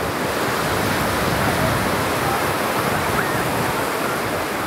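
Steady wash of sea surf on a beach, with faint distant voices.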